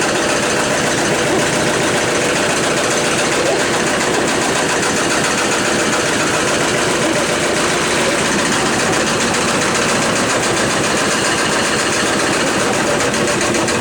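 Brand-new washing machine running with a loud, steady, rapid mechanical rattle and vibration, a crazy-sounding racket from a machine just plugged in and not behaving normally.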